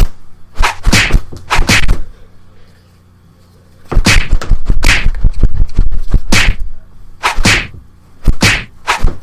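A string of loud, sharp whacks, one or two a second, with a pause of about two seconds after the first few.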